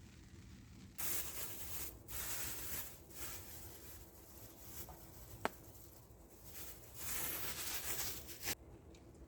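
Scraping and rustling in several bursts that start and stop abruptly, with one sharp click about halfway through.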